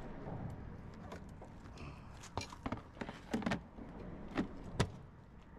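Light clicks, knocks and rustles of hands working a fishing cart's mesh bag and the plastic cooler inside it, with the sharpest clack near the end.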